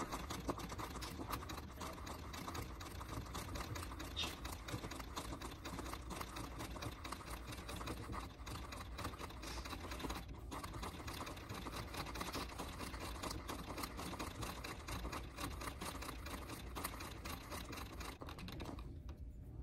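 Treadle sewing machine stitching, the needle going in a fast, even clicking rhythm; it pauses briefly about halfway and stops shortly before the end.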